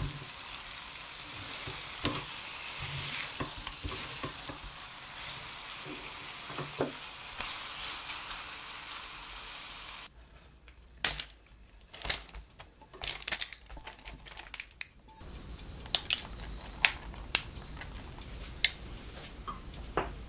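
Dumplings sizzling in a sweet-spicy gochujang glaze in a frying pan, stirred with a spatula as the sauce cooks down. About ten seconds in the sizzling stops and parchment paper crinkles in short bursts, followed by a faint low hum with a few sharp taps.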